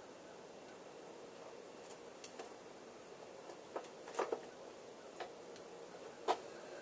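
Faint room tone with a handful of soft, irregular clicks and taps from the bicycle crank parts being handled while grease is worked onto the spindle.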